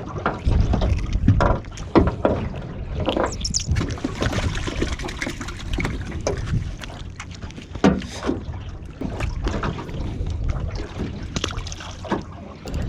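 Wind buffeting the microphone and water lapping against a small boat's hull, with scattered knocks and clicks of fishing gear being handled in the boat.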